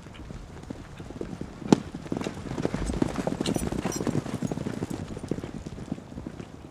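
Polo ponies galloping on arena dirt, a rapid jumble of hoofbeats that grows louder and denser from about two seconds in as the horses pass close. One sharp crack stands out just before that.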